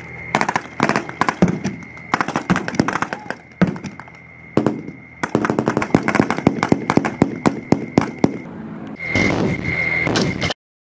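Rapid rifle gunfire from M16-type rifles firing blanks: many quick shots in volleys with short lulls, over a steady high ringing tone. Near the end a dense blast of noise as a pyrotechnic explosion goes off, then the sound cuts off suddenly.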